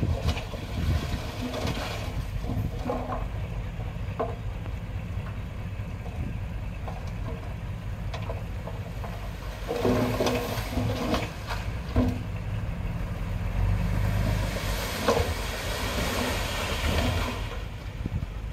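Engine of small earth-moving machinery running steadily, with a few knocks and clanks, a busier stretch about two-thirds through, and a hissing rush that builds near the end.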